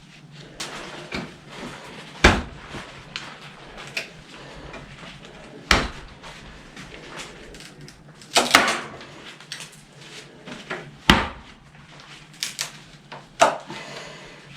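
Sharp knocks and clicks as a badly bent pocketknife blade is worked on: five loud impacts a few seconds apart, with lighter taps and clicks between them.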